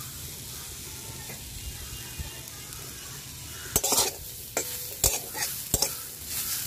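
Steel spatula stirring grated coconut in a metal pan, with sharp scraping strokes against the pan from about halfway in, over a steady hiss.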